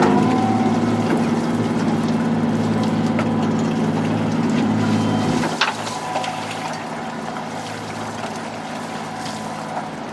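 Fishing boat's engine running steadily over water noise. A sharp knock comes about halfway through, after which the engine sound is quieter and lower.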